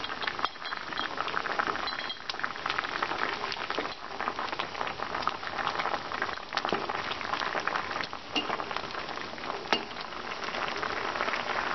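Vegetables in a pan of water boiling hard for sambar: a dense crackle of bubbling with fine pops throughout. A wooden spoon stirs through the pot.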